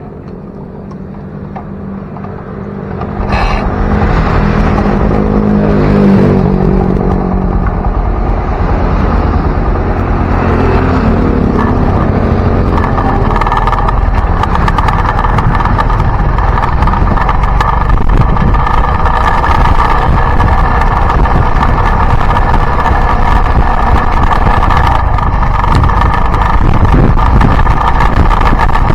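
Yamaha Byson single-cylinder motorcycle engine, quiet and steady at first; about three seconds in it pulls away and heavy wind rumble on the microphone comes in. The engine pitch rises and falls several times as it goes up through the gears, then settles into a steady drone while riding.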